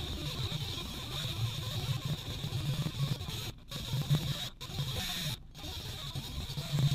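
Power-tool wire wheel scrubbing rust and corrosion off the steel hub face of a brake hub: an uneven, scratchy buzzing. It breaks off three times for a moment about halfway through.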